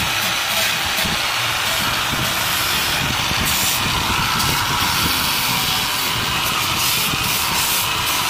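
Electric disc sander running steadily with its sanding pad pressed against the old drill's metal housing, grinding the surface with a continuous high, hissing grind.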